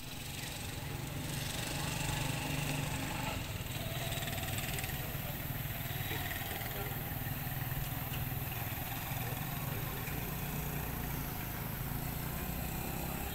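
A steady, low engine drone that runs on without a break, with a hiss of noise over it.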